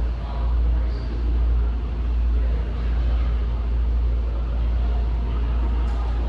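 Steady low rumble of a large gym's background noise, with a short sharp click near the end.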